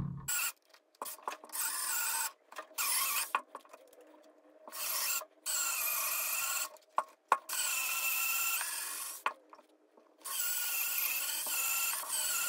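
A small cordless drill boring into the wooden heel of a roller skate boot, running in about seven short bursts of motor whine with pauses between, the bit grinding through the wood. The last burst, near the end, is the longest.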